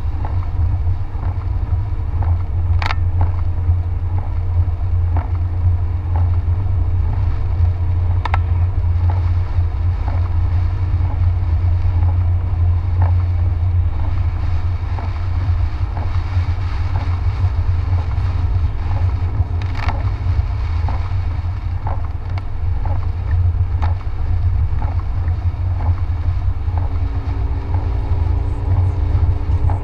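Car driving on a rain-soaked road, heard from inside the cabin: a steady low rumble with an even hiss of rain and wet tyres, and a few sharp clicks here and there.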